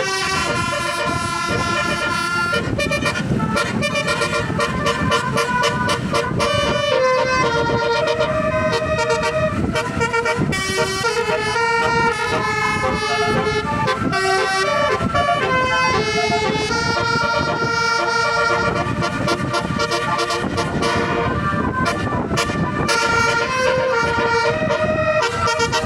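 Bus telolet horn: a set of musical electric horns on a tour bus playing a melody, one note stepping to the next without a break, over a low rumble.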